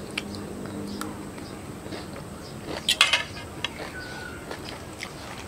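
Close-up eating sounds: chewing with small clinks of a metal spoon against a ceramic bowl. About three seconds in there is a louder burst of clicky noise as the bowl is tipped to the mouth to drink.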